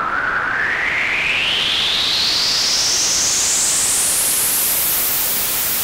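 Arturia MiniBrute synthesizer's white noise through its low-pass filter with resonance turned up very high, played dry with no effects pedals: a loud hiss with a whistling resonant peak that sweeps steadily upward as the cutoff is opened, reaching the very top of the range about five seconds in.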